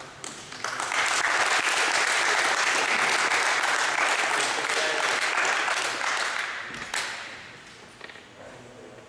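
Applause from a small group of people clapping their hands, starting about a second in and dying away after about six seconds.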